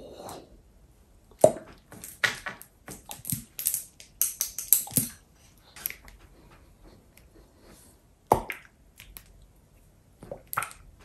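Hot sauce squirted from plastic squeeze bottles onto blocks of dry instant noodles: a run of sharp, wet, sputtering squirts and clicks, thickest in the first five seconds, with single loud ones about eight seconds in and near the end.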